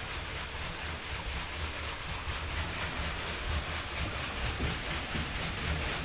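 Water-powered blast machinery: a large water wheel turning and its piston going up and down. It makes a steady, gentle mix of mechanical and water noise over a wavering low rumble.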